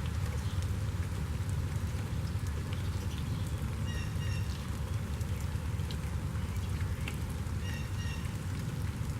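Steady rain with scattered drops ticking, and a bird singing the same short phrase twice, about four seconds apart.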